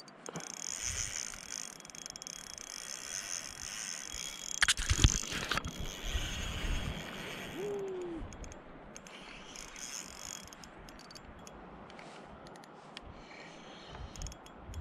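Spinning reel working with a ratchety, mechanical sound as a fish is played on a light rod, heavily bent under load. A cluster of loud knocks and bumps comes about five seconds in.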